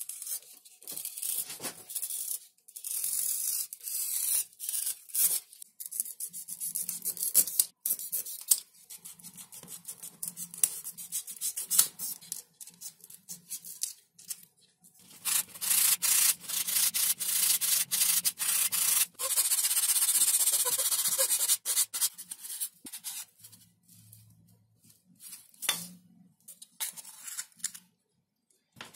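Snap-off utility knife blade cutting through Depron XPS foam sheet: a run of short scratchy strokes, then a longer stretch of steady cutting and rubbing about halfway through, with small clicks from handling the foam pieces.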